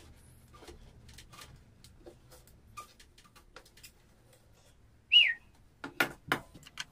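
Handling and opening the plastic cap of a large wood glue container: faint clicks and rustles, a short high squeak falling in pitch about five seconds in, then several sharp clicks near the end.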